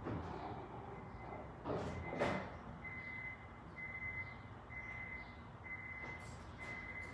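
Two knocks a little under two seconds in, then a high electronic beep repeating about once a second, each beep about half a second long.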